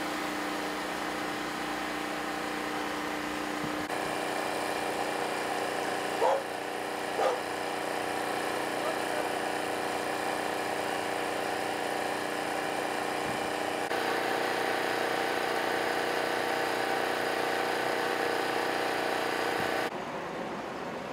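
Steady hum of idling vehicle engines that changes abruptly a few times, with a dog barking twice about six and seven seconds in.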